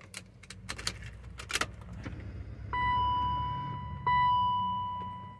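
Keys jangling and a few sharp clicks, then the BMW X5's dashboard warning chime: a clear ding that fades away and repeats about every second and a half.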